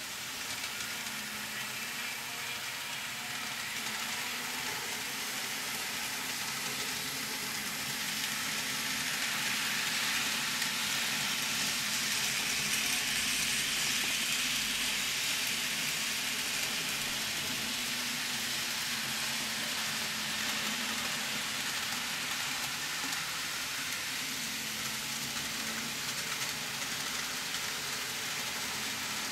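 N gauge model trains running on the layout: a steady rolling hiss of small wheels on the rails over a faint motor hum. It swells to its loudest about halfway through, as the electric multiple unit and a freight train pass, then eases off.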